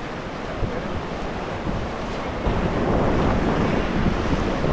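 Rushing river water around a drifting raft, with wind buffeting the microphone; the rush gets louder about two and a half seconds in.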